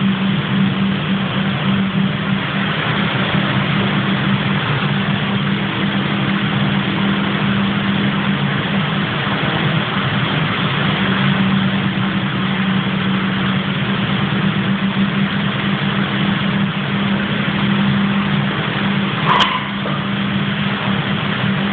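A loud, steady machine drone with a low hum, and a single sharp click near the end.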